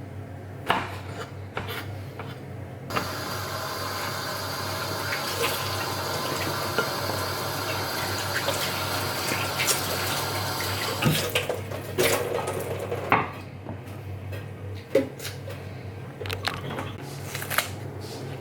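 Kitchen tap running into the sink, starting about three seconds in and stopping about ten seconds later, with clinks of dishes and utensils before and after.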